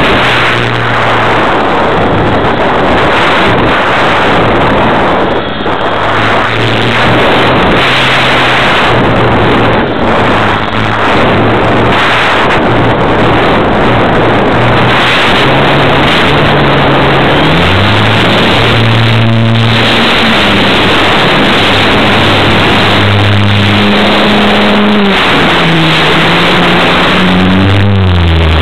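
RC model aeroplane's motor and propeller heard from a camera mounted on the plane, buried in loud wind rush over the microphone. The low drone holds steady at first, then rises and falls in pitch from about halfway through as the throttle changes, going highest near the end.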